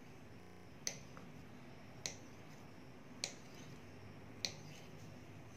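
Kitchen knife cutting a log of soft dough into pieces, the blade striking the stone board at each cut: four sharp clicks about a second apart.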